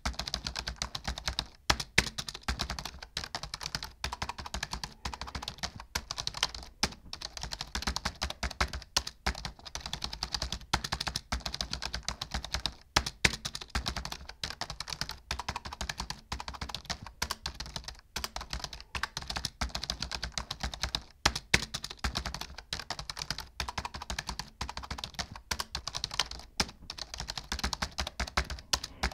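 Typing on a computer keyboard: a rapid, continuous stream of keystrokes with a few brief pauses.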